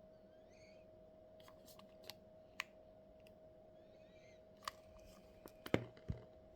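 Scattered sharp clicks and taps of small hard objects being handled, the loudest cluster near the end, over a steady electrical hum. Two faint chirping squeaks.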